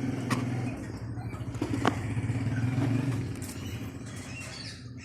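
An engine running steadily with a low hum that eases off about three seconds in, with a few sharp clicks over it.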